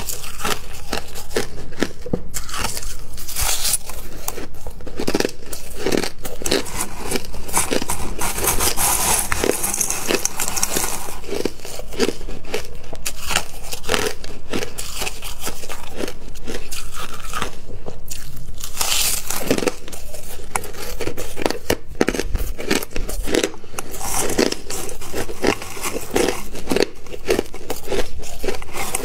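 Crushed ice being bitten and chewed, a dense, continuous crackle of many small sharp crunches.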